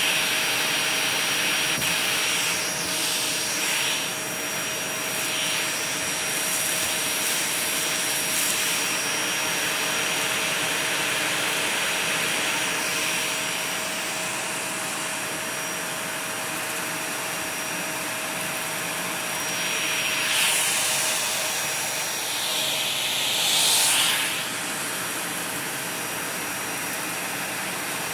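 Vacuum cleaner running steadily on carpet, a constant rushing hiss with a steady whine, picking up hair and loose diamond painting drills. Twice near the end the hiss briefly swells louder.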